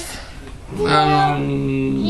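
A man's voice holding one long, level note for about a second, starting about a second in, like a drawn-out chanted vowel.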